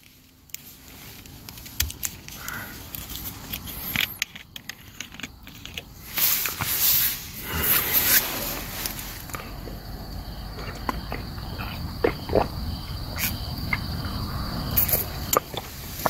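Rustling and scattered light clicks and knocks of someone moving about and handling gear. From about nine seconds in, a steady high insect trill joins.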